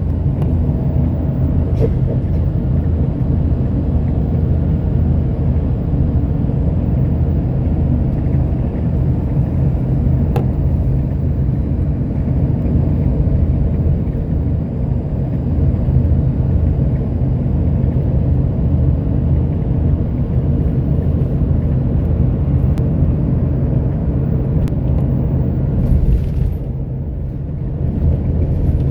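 Steady engine and road rumble inside a moving bus, with a few faint ticks; it eases briefly near the end.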